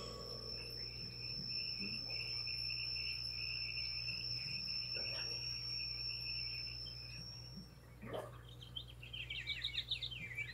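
Cartoon soundtrack night effect: a steady high cricket-like trill over a wavering lower chirring, which stop about seven and a half seconds in. Quick twittering bird chirps start near the end, over a constant low hum.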